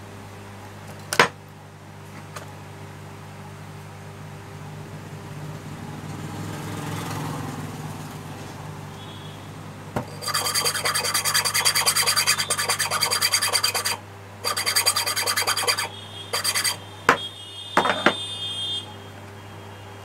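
Loud rasping rub in several bursts, starting about ten seconds in and stopping near the end, with a sharp click about a second in and a steady low hum underneath.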